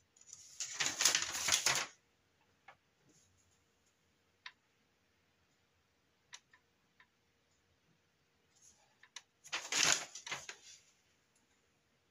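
A folded paper instruction sheet rustling as it is unfolded and handled: two bursts of paper rustling, one about a second and a half long near the start and another around ten seconds in, with a few faint ticks between.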